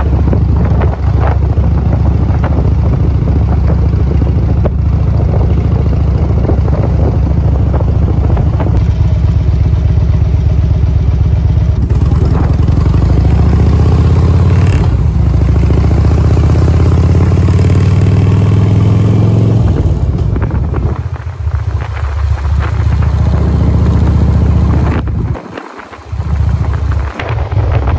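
Harley-Davidson touring motorcycle's V-twin engine running under way, heard from the rider's seat. The engine pitch climbs steadily as it accelerates through the middle, drops back about twenty seconds in, and dips briefly near the end.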